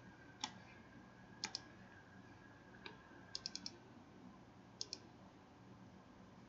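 Computer mouse button clicks: a single click, then a double-click, another click, a quick run of four clicks, and a final double-click, faint over a low steady room hum.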